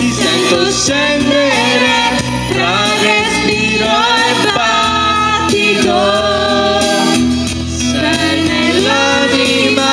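A group of young people singing together into handheld microphones over backing music.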